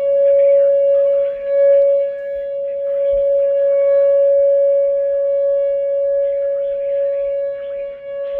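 Whelen WPS-2910 electronic outdoor warning siren sounding a steady, unbroken tone, its level swelling and dipping slightly; it is sounding for a tornado warning. A brief low thump comes about three seconds in.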